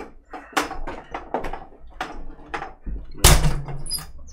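Knocks and bumps as people move about a small room, with one loud, heavy thump a little past three seconds in.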